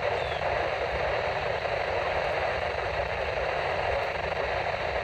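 Steady static hiss from a radio receiver, even and unbroken, with a low rumble beneath it.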